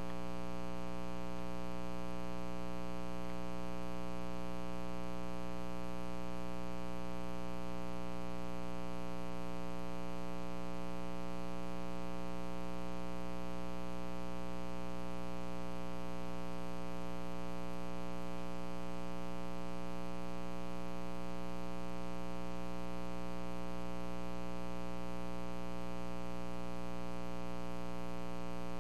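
Steady electrical mains hum with a buzzy series of overtones, unchanging throughout.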